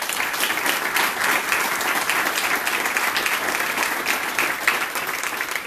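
Applause from a small group of people clapping: a dense patter of hand claps that holds steady and thins out near the end.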